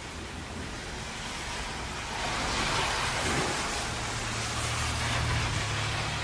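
Steady rain with traffic on a wet road. A vehicle's tyres hiss through the water in a swelling wash about two seconds in, and a low vehicle rumble comes in a little past the middle.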